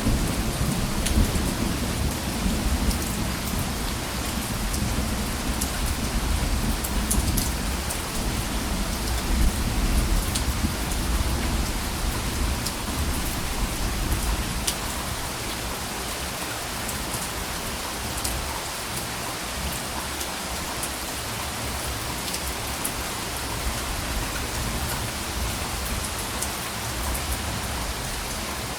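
Steady rain falling, with scattered droplet ticks. A soft, low rumble of distant thunder under it in the first half fades away about halfway through.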